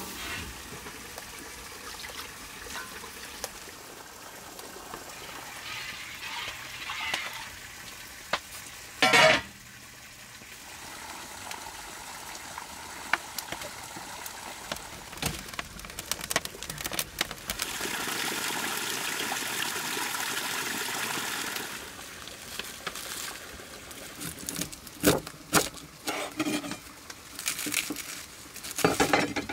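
Water being poured, with a steady pour of a few seconds past the middle. Around it are handling noises: one loud clatter about nine seconds in and a run of knocks near the end.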